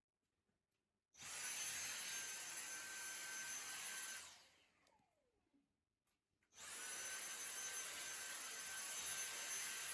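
An electric motor appliance is switched on with a sudden steady whooshing whine. It is switched off about three seconds later and winds down with a falling pitch, then is switched on again about two seconds after that and keeps running.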